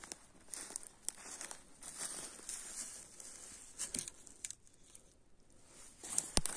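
Footsteps crunching over dry pine needles and grass, with rustling and a few sharp clicks; the loudest click comes near the end.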